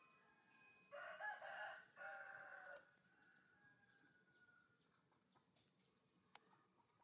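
A rooster crows once, faintly, about a second in: a two-part call lasting about two seconds. Around it is near silence with faint high chirps and one short click near the end.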